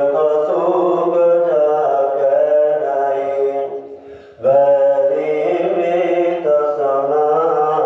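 A man's voice chanting a recitation of Sikh scripture (paath) in long, held, sing-song phrases, with a short break about four seconds in.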